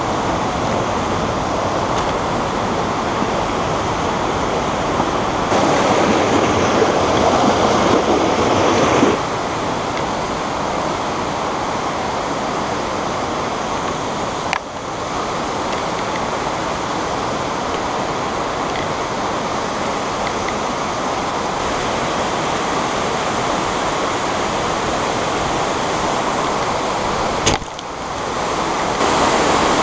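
Steady rush of a mountain stream running over rocks and a waterfall in a narrow gorge. It swells louder for a few seconds, then settles, with two brief sudden dips.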